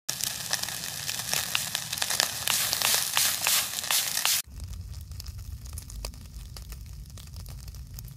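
Crackling and sizzling over a charcoal grill, with dense pops and sharp crackles. About four and a half seconds in the sound cuts to a quieter stretch of fainter crackles over a low rumble.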